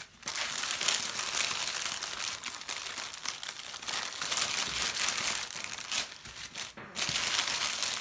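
Small plastic bags of diamond painting drills crinkling as they are handled and sorted, with a brief pause about seven seconds in.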